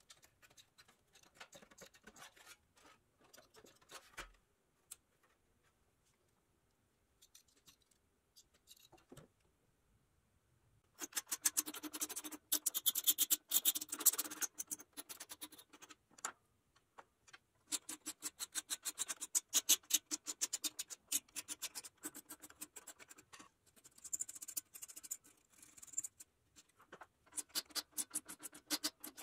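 Hand file rasping over the edge of a small sheet-metal part held in a bench vise: quick repeated strokes that start about a third of the way in and come in three spells with short pauses. Before that, faint clicks of metal snips cutting thin sheet metal.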